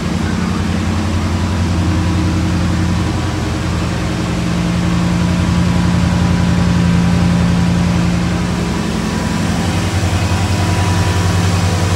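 Chevrolet Camaro IROC-Z's Tuned Port Injection V8 idling steadily as it warms up after a cold start. It runs quiet, with no shaking or rocking of the engine.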